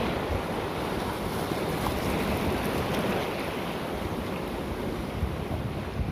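Rough, choppy sea waves washing and breaking against a rocky shore, with wind buffeting the microphone as a low rumble.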